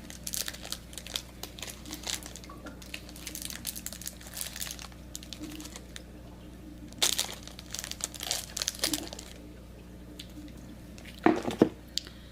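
Chocolate bar wrapper crinkling and rustling in bursts as the bar is unwrapped and handled, with two sharper knocks near the end.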